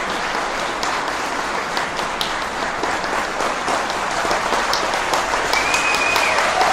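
Applause from a crowd in a hall, many hands clapping steadily.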